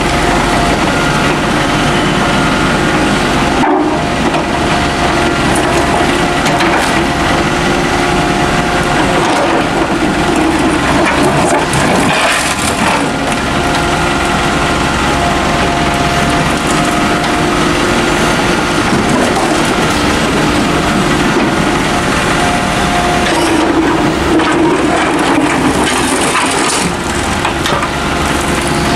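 Volvo mini excavator working under load: the diesel engine and hydraulics run steadily with a held whine, while the bucket digs and crunches through soil and concrete rubble.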